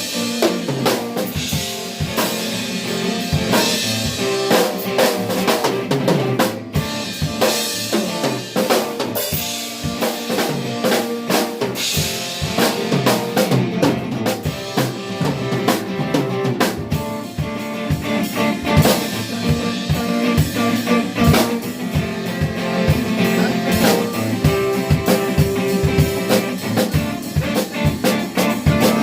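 Live drum kit playing continuously, dense snare and bass drum hits, with other band instruments holding pitched notes underneath.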